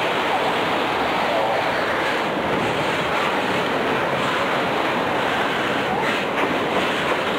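Freight train of autorack cars rolling past at close range: a steady rushing noise of wheels on rail, with a few wheel clicks about six seconds in.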